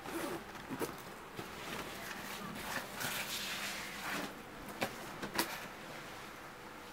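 Faint rustling and handling noises of someone moving about a room, with a few light clicks and knocks over a low hiss.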